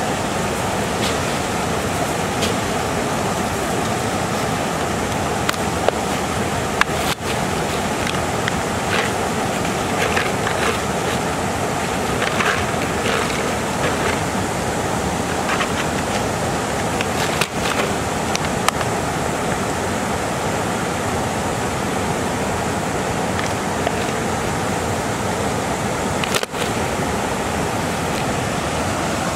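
Steady rush of river water pouring over a low weir, with a few light clicks and rattles from handling in between.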